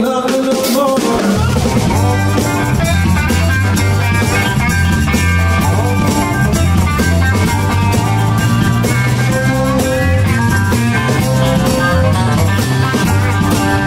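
Live blues band playing an instrumental passage: electric guitars, bass line and drum kit, with a harmonica played into the microphone over the top.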